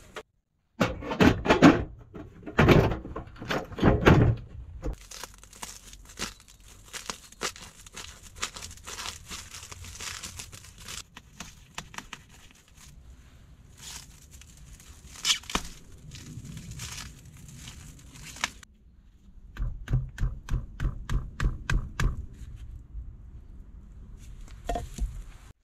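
A few heavy knocks, then stretch plastic wrap crinkling and tearing for several seconds, then a quick, even run of taps, about four a second: the back of a hatchet driving a small wooden peg through plastic wrap into a log.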